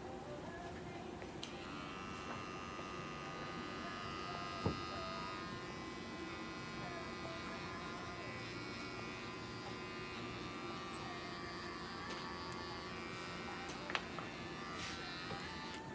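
Small handheld electric trimmer running with a steady high whine, starting about a second and a half in and stopping near the end. There is a sharp click in the middle and another near the end.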